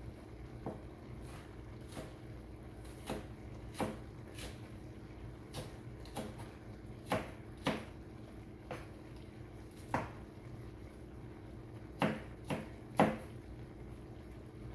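Butter sauce bubbling around shrimp in a hot wok, giving irregular sharp pops and ticks of varying loudness, the strongest in the last few seconds, over a steady low hum.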